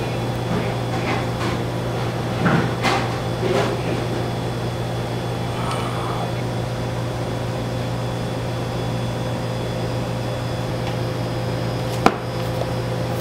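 A bite into crispy fried chicken and chewing, with short crunching noises over the first few seconds, over a steady room hum. A single sharp knock comes near the end.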